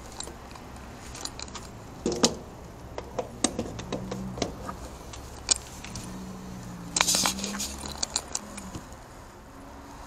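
Small metal objects being handled: clinking and rattling with scattered sharp clicks and knocks, loudest in two clatters about two seconds in and about seven seconds in.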